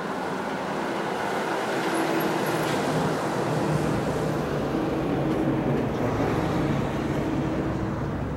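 Mercedes-Benz Actros lorry passing close by, its diesel engine and tyres growing louder to a peak in the middle, then fading as it moves off.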